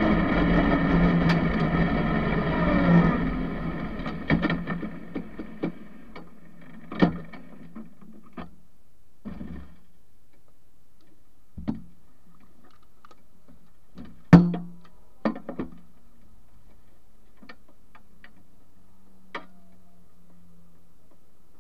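Norma racing car's 1298 cc engine running and then slowing, its note falling and fading over the first four seconds as the car pulls up and stops. After that, scattered sharp clicks and knocks, the loudest about 14 seconds in, over a faint low steady hum.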